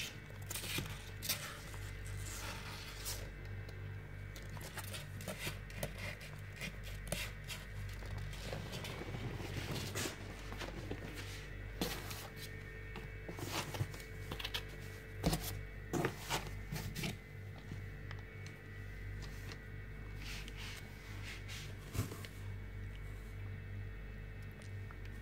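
Background music with a steady drone, over scattered short scratches and clicks from kittens moving about on cloth in a cardboard box.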